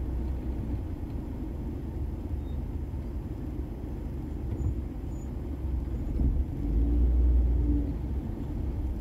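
Road traffic and the car's own running noise heard from inside the car: a steady deep rumble that swells a little about seven seconds in.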